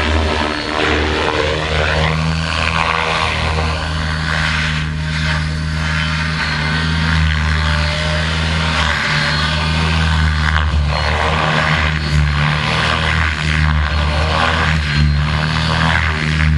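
Align T-Rex 600E Pro electric RC helicopter in flight: the rotor blades make a steady low hum and the electric motor and gears whine. The whine rises and falls as the helicopter manoeuvres.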